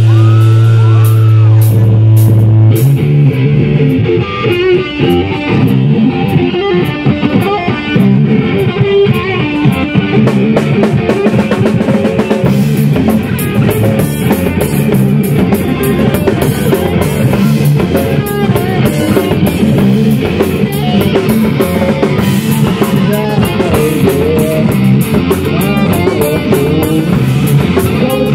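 Live rock band (electric guitar, bass guitar and drum kit) playing loud. A low note is held for about the first three seconds, then the drums come in and the full band plays on.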